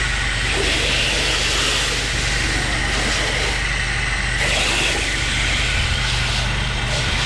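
10½ GPM pressure washer running: a steady engine hum under the continuous hiss of the high-pressure water spray.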